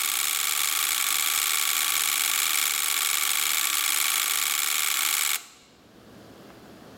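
Three HLS-14F3L 5 V relays wired as a ring oscillator, their contacts chattering so fast that they make a steady buzz. It stops abruptly about five and a half seconds in.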